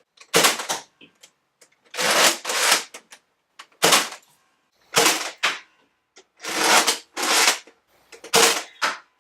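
Nerf Mega Centurion blaster being worked and fired: a series of about seven loud, sharp mechanical bursts, each a second or less long, with quiet gaps between them.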